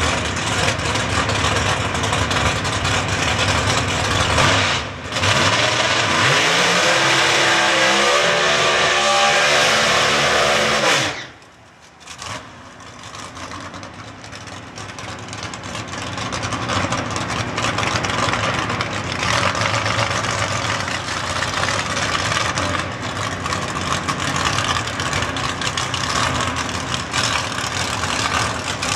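Drag-racing car's engine held at high revs through a burnout, its pitch climbing, then cut off sharply about eleven seconds in. After that it runs at low revs, growing steadily louder as the car comes closer.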